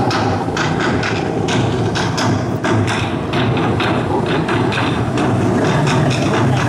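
Background music with a quick drum beat over the steady drone of jet ski engines running on the water.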